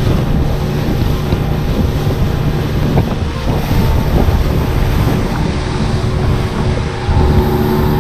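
Motorboat running at speed across open sea: a steady engine drone under heavy wind buffeting on the microphone and the hiss of spray from the hull and wake. It gets a little louder about seven seconds in.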